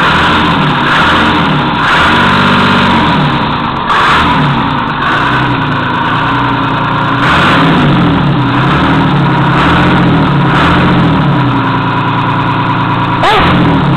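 Perkins 6.354 straight-six diesel engine, out of a combine harvester and running through a custom exhaust, being revved up and down over and over. Its pitch drops sharply near the end.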